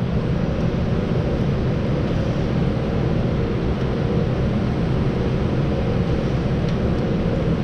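Steady fan or ventilation noise: an even whoosh with a low drone and a faint hum underneath, unchanging throughout.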